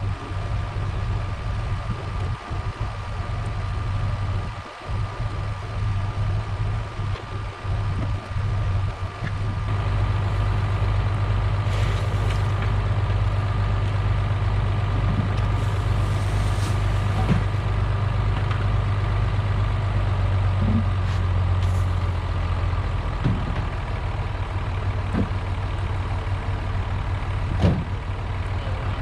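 Tractor engine running steadily, with a faint steady whine over it. The engine note firms up about ten seconds in, and a few short knocks come through in the second half.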